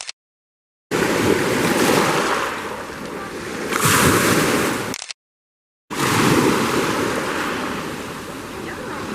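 Sea surf: waves washing in and breaking, heard as loud, even rushing noise that swells to a peak about four seconds in. It comes in two short stretches, each cut off abruptly by a moment of dead silence.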